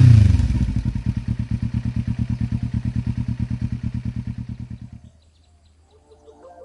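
Kawasaki Ninja 300 parallel-twin engine through a ZARD full exhaust with the silencer removed, dropping back from a rev to a pulsing idle. The engine then stops about five seconds in.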